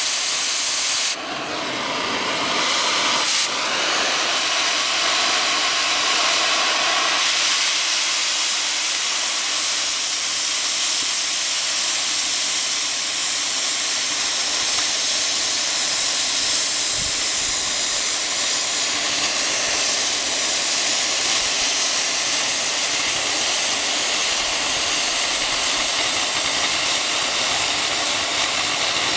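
Oxy-fuel cutting torch hissing steadily as its cutting jet burns through the thick steel plate of an excavator bucket ear. The hiss dips briefly about a second in, and there is a single sharp click a little after three seconds.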